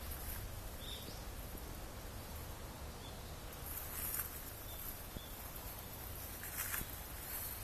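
Footsteps crunching through dry fallen leaf litter, with louder crackles about four seconds in and again near the end, over a low steady rumble on the phone's microphone.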